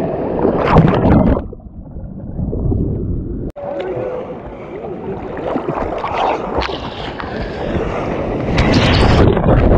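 Ocean shore-pound waves sloshing and breaking right at the water's surface. For about two seconds the sound goes muffled as the water closes over, and near the end there is a loud rush of whitewater as a wave breaks.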